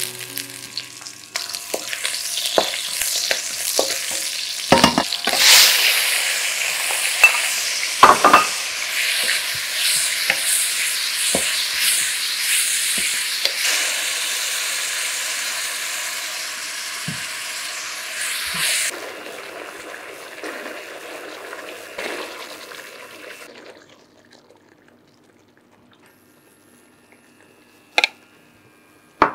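Scallion and tomato pieces sizzling loudly in hot oil in a wok as they are stir-fried, with a wooden spatula knocking against the pan now and then. The sizzle drops about 19 seconds in and stops about 24 seconds in, leaving quiet broken by a sharp clink near the end.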